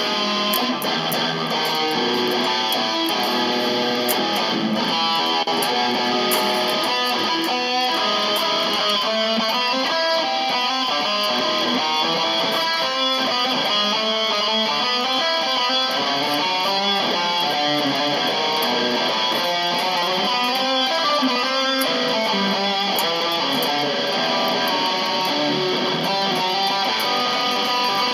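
Epiphone electric guitar played solo: quick runs of single notes and riffs at an even, steady loudness.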